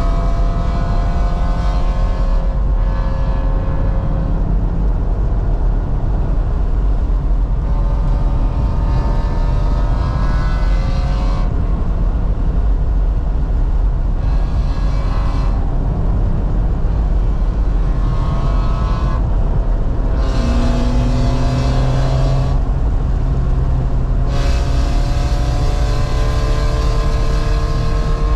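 2018 BMW M3 Competition's twin-turbo inline-six driven hard on track, heard from inside the cabin: the engine note climbs in pitch under full throttle and drops away several times at gear changes and braking, over steady road and wind noise.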